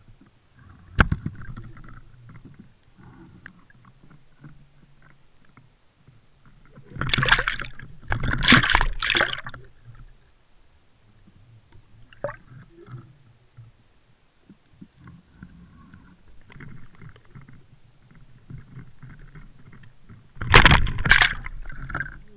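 Water heard through an underwater camera's housing: a low rumble with a sharp knock about a second in. A loud rush of sloshing, gurgling water comes about seven seconds in and lasts some three seconds, and another comes near the end.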